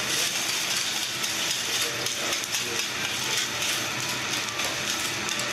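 Eggs sizzling on a hot steel teppanyaki griddle, a steady hiss, with frequent clicks and scrapes of metal spatulas on the griddle plate.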